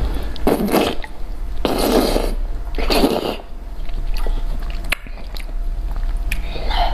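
Close-miked slurping of thin noodles in a thick broth: three loud slurps in the first three seconds or so. Then wet chewing with small clicks.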